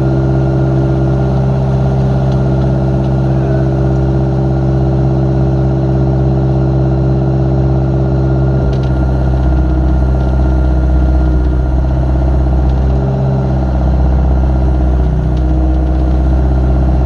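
Old Samsung 0.2 m³-class excavator's diesel engine running steadily, with a few faint clicks over it.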